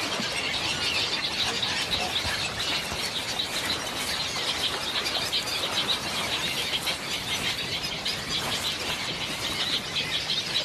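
A mangrove heron nesting colony: a steady din of many birds giving short, high, squealing calls over one another.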